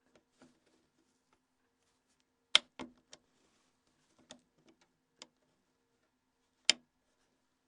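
Plastic snap clips of a Nokia N82's keymat cover clicking as they are unlocked. About half a dozen sharp, separate clicks are heard, the loudest about two and a half seconds in and another near the end, with fainter ticks between them over a faint steady hum.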